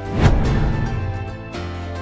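Background music with a whoosh transition effect about a quarter second in that fades away over about a second.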